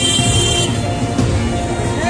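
Background music: sustained instrumental tones over a low pulsing beat, with a bright high ringing note in the first half-second.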